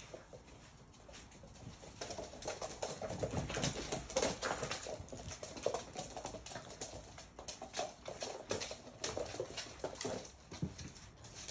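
Labrador puppies scampering and play-fighting on a laminate floor. Their claws make a busy patter of clicks, with puppy yaps and grunts mixed in, and the activity picks up from about two seconds in.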